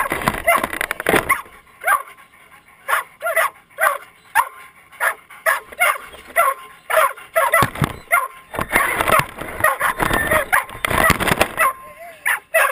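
Excited greyhounds yipping and whining in a rapid string of short, high cries. A few dull thumps sound close to the microphone.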